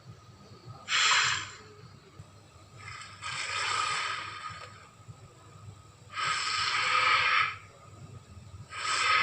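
Carnotaurus dinosaur sound effect: breathy snorts and hissing exhalations, a short snort about a second in, two longer drawn-out breaths, and another short snort at the end.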